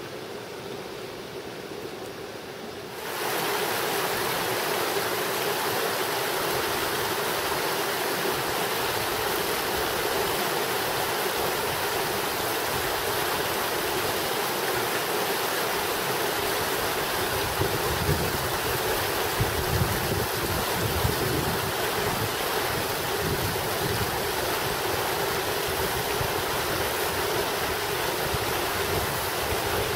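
Creek water rushing steadily over rocks and small rapids, stepping up louder about three seconds in.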